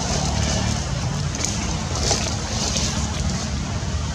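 Steady outdoor background noise: a low rumble under a faint hiss, with no distinct events.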